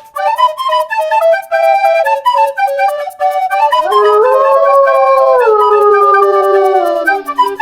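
Bouncy background music with a woodwind-like melody over a steady ticking beat. About halfway through, a wolf howl comes in: it rises, holds, then slides slowly down and fades out just before the end.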